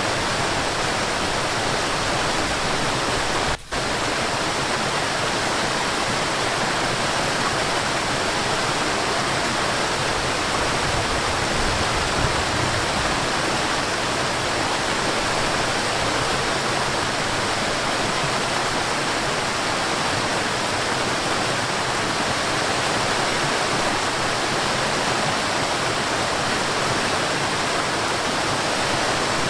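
Waterfall rushing steadily, an even roar of falling water, with a split-second drop-out about three and a half seconds in.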